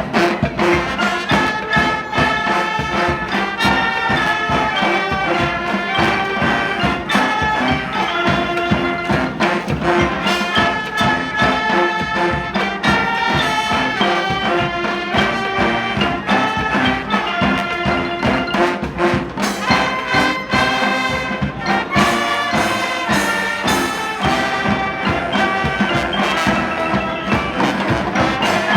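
Street brass band playing: trumpets, trombones and other horns sounding a melody together over steady drums.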